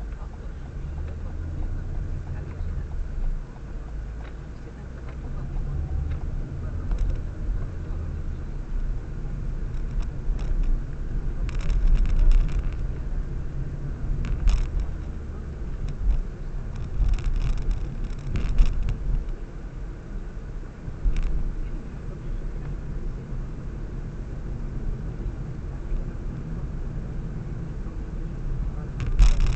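Car interior noise while driving: a steady low rumble of engine and tyres, with a few short knocks and rattles here and there.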